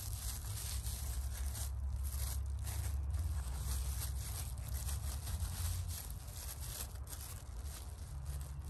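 Rustling and crinkling as soil is gathered by hand to pack around a branch being air-layered, over a steady low rumble.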